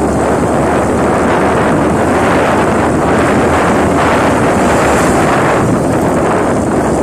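Steady wind rush buffeting the microphone of a camera carried on a moving motorcycle, with the motorcycle's running and road noise mixed in underneath.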